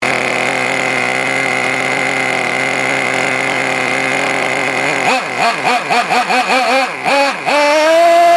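Traxxas T-Maxx 2.5R's small two-stroke nitro engine idling steadily, then blipped with several quick throttle revs from about five seconds in, rising into a longer held rev near the end.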